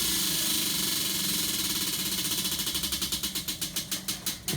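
Spinning prize wheel ticking: the ticks come so fast at first they blur together, then slow and spread out as the wheel coasts to a stop.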